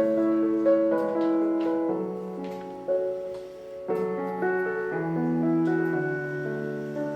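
Soft background piano music, slow and gentle, with chords and single notes changing about every half second.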